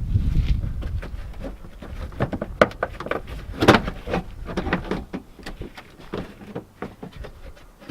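Irregular clicks and knocks of car parts and tools being handled, the two sharpest a little over a second apart, over a low rumble that fades after the first second.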